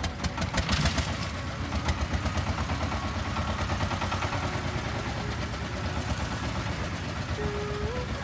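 Diesel engine of a construction vehicle running with a fast, even pulsing chug. A burst of clatter comes about a second in.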